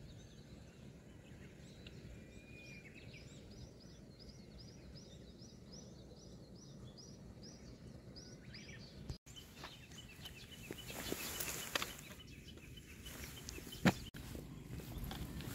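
A small bird singing a long run of short, evenly repeated high notes, about three a second, over faint outdoor background. The song breaks off about nine seconds in, and scattered light clicks follow, with one sharp click near the end.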